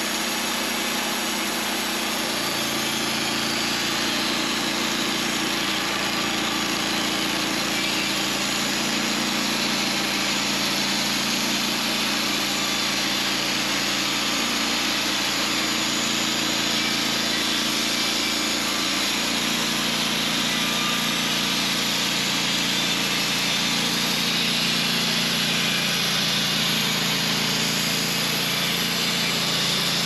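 Wood-Mizer LT15 portable band sawmill cutting a small hickory log: its gas engine runs steadily under load while the band blade hisses through the wood, the engine note shifting slightly a couple of seconds in and again midway. This is a squaring test cut on a freshly aligned blade with a new guide roller bearing, and it cuts fast.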